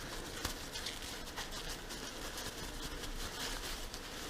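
Small workbench handling noises: brake parts and packaging being picked up and set down, rustling and clicking, with one sharper click about half a second in.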